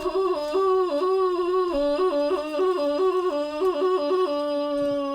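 A woman in active labor vocalizing through a contraction: one long sustained tone that warbles quickly back and forth between a higher and a lower pitch, then settles onto a single held low note about four seconds in.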